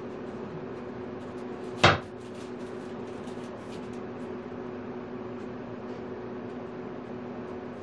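Steady low machine hum in a woodworking shop, with one sharp knock about two seconds in and a few light clicks as gloved hands work at a wooden slab.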